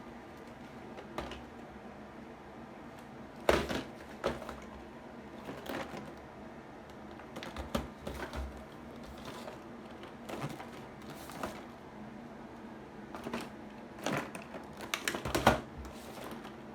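Irregular clicks and knocks, a dozen or so spaced unevenly, loudest a few seconds in and again near the end, over a faint steady room hum.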